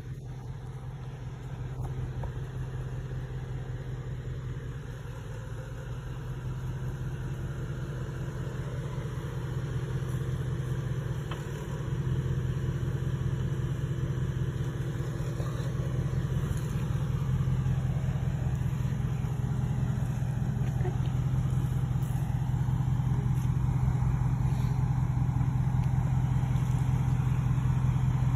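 Dodge Ram pickup's Hemi V8 running at a low, steady crawl through soft sand, growing gradually louder as the truck comes closer.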